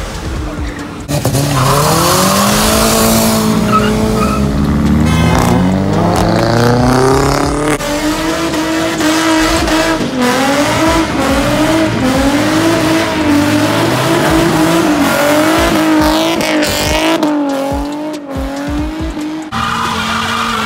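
Car engines revving hard and tyres squealing as cars spin donuts on asphalt, the engine pitch rising and falling over and over. The sound changes abruptly a few times.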